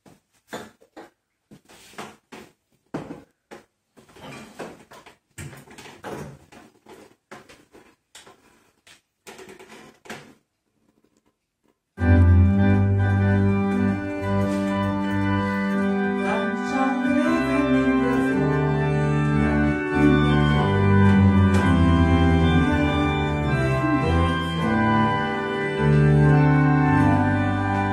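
About ten seconds of irregular soft clicks and knocks, a short pause, then a two-manual home organ starts playing about twelve seconds in: loud sustained chords changing step by step over deep bass notes.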